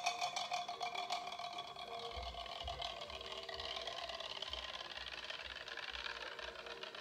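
Magnetic stir plate spinning a stir bar in a glass Erlenmeyer flask of yeast starter. Rapid clicking and ringing in the first second or so settles into a steady whirring swirl, with irregular low thuds underneath.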